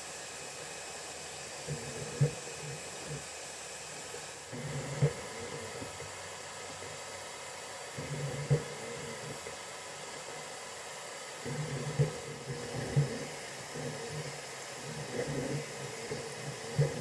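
FLSun V400 delta 3D printer at work: its fans give a steady hiss while the stepper motors whir in short bursts as the printhead moves. There are sharp ticks every few seconds, about six in all.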